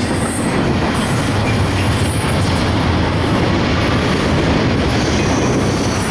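Norfolk Southern intermodal freight train rolling past: a steady rumble of wheels on rails, with shifting high-pitched squeal and hiss from the wheels.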